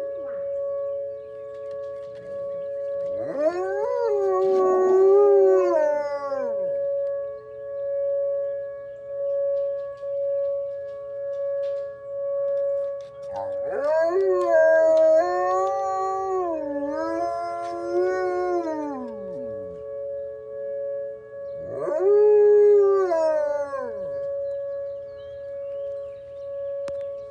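A wolf howls three times, long rising-and-falling howls, the middle one the longest, over the steady two-tone wail of an outdoor warning siren that swells and fades as it turns.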